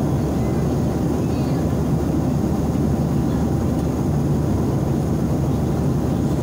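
Steady low rumble of jet airliner cabin noise in cruise: engine and airflow noise heard from inside the cabin at a window seat.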